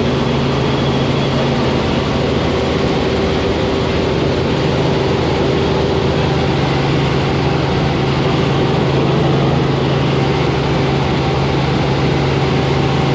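Helicopter engine and rotor noise heard inside the cabin: a loud, steady hum with a constant low drone over a wide rushing noise, during a level turn.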